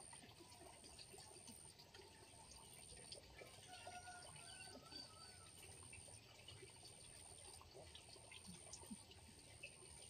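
Near silence: faint pond-side ambience with a light trickle of water, a steady high-pitched tone that breaks about once a second, and a short warbling bird call about four seconds in.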